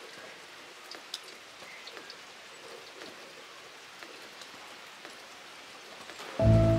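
Steady rain falling, with scattered individual drops ticking on hard surfaces. Near the end, music comes in suddenly and is much louder than the rain.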